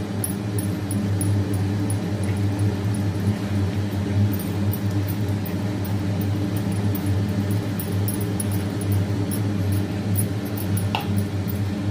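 A steady low hum with a few fixed tones, like a running motor or fan, lies under the faint sounds of milk being stirred in a pan with a wooden spatula. A short clink comes about eleven seconds in.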